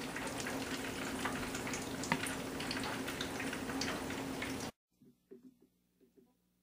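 Hot oil sizzling and crackling as breaded food fries, a steady hiss with many small pops, cutting off suddenly about four and a half seconds in.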